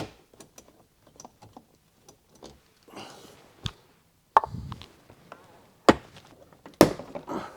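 Scattered small clicks and a few sharp knocks of hand tools and plastic trim being handled as the rear headliner's fixings are undone.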